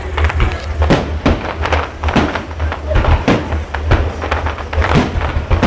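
A fireworks display going off: a quick, irregular run of bangs, about two or three a second, over a constant low rumble.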